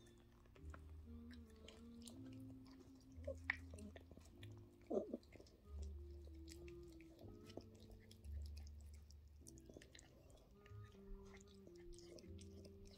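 A mother Yorkshire terrier licking and chewing at her newborn puppy's birth sac: faint wet licking and mouthing clicks, with two louder smacks about three and a half and five seconds in. A faint low hum of steady tones runs underneath.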